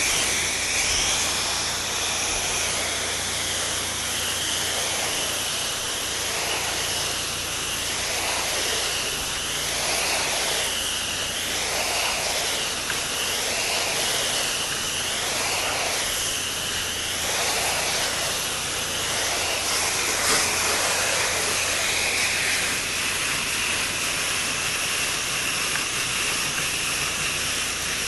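Pressure washer spray hissing against the house, with a steady low hum underneath; for a stretch in the middle the spray's sound swells and fades about every one and a half seconds as the wand sweeps back and forth.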